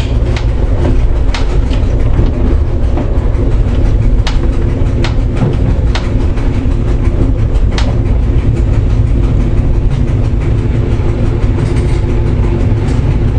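Cab of an SNCB AM 78 electric multiple unit running along the line: a steady low rumble with a few steady tones, broken by sharp irregular clicks as the wheels pass over points and rail joints, most of them in the first eight seconds.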